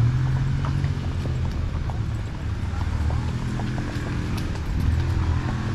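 Horses' hooves clip-clopping on a dirt trail, under a steady low rumble.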